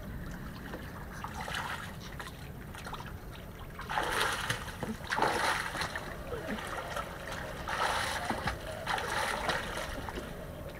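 A person swimming, arms splashing the water in about five short bursts, the loudest from about four seconds in.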